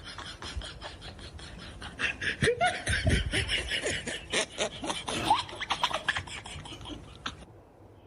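A woman laughing in a rapid string of short bursts, loudest in the middle, then stopping abruptly near the end.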